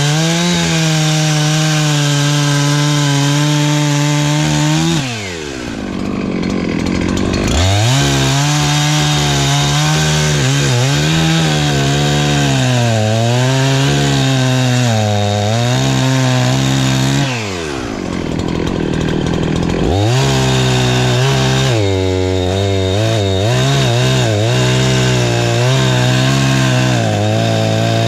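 Perla Barb 84cc two-stroke chainsaw at full throttle cutting firewood, its pitch sagging and recovering as the chain loads in the wood. Twice, about five seconds in and again about seventeen seconds in, the engine drops to idle for a couple of seconds, then revs back up.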